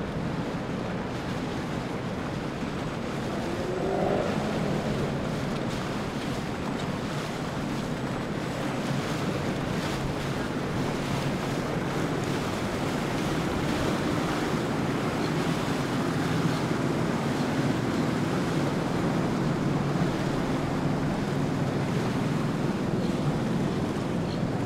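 Outboard boat engines running over the wash of water and wakes, with wind on the microphone. A brief rising whine comes about four seconds in.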